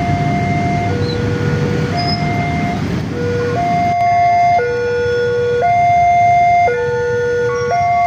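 Railway level-crossing warning alarm sounding its electronic two-tone signal, alternating a higher and a lower note about once a second, warning that a train is approaching and the crossing is closing. A rumble of motorcycle traffic lies under it in the first half.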